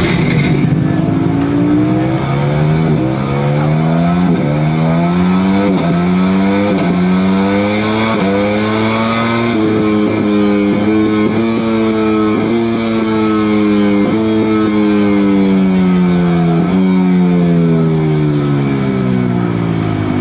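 Simulated Ducati motorcycle engine sound from the coaster vehicle's sound generator. It revs up through the gears for about ten seconds, dropping in pitch at each upshift, then winds down in pitch with a short blip at each downshift.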